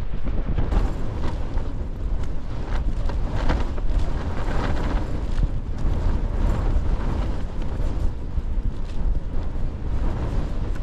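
Strong gusting wind buffeting the microphone with a deep, continuous rumble.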